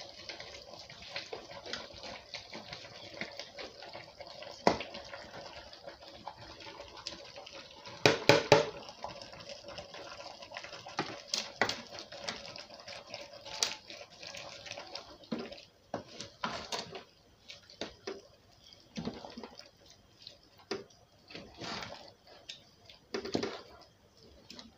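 A wooden spoon scraping chopped waterleaf out of a plastic bowl into a metal pot of simmering soup, then stirring it in. Irregular knocks and clicks of the spoon on the pot and bowl, with a dense cluster of them about eight seconds in, sit over a steady hiss that thins out about two-thirds of the way through.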